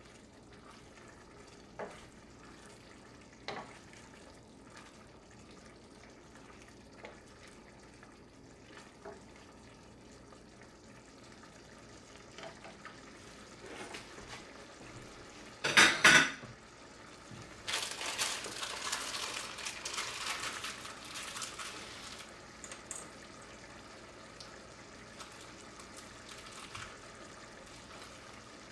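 Thickened stew bubbling and sizzling in a stainless steel pot on raised heat, with a few light scrapes and taps of a wooden spatula in the first seconds. About halfway there is a sharp double knock against the pot, then a few seconds of louder sizzling.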